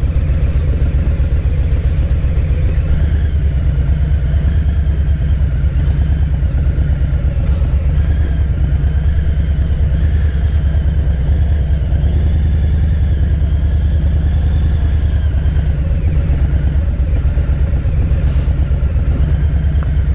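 Harley-Davidson Softail Low Rider's Milwaukee-Eight V-twin engine running loud and steady at idle, with an even pulsing beat and no revving.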